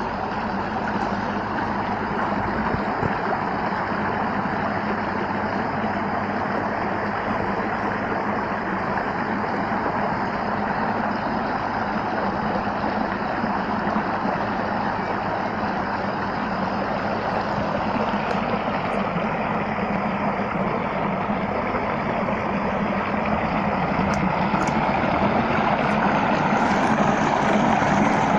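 Steady rushing of running water, slowly growing louder toward the end.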